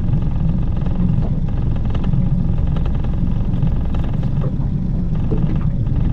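Mercury outboard motor idling with a steady low rumble.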